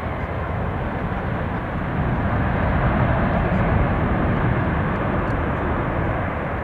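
Boeing 737-400's twin CFM56 turbofan engines running as the jet moves away along the runway: a steady rushing jet noise that swells a little around the middle and then eases off.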